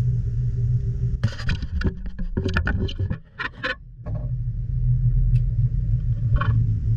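Boat motor running steadily with a low hum. About a second in, a cluster of sharp clicks and knocks lasts a few seconds.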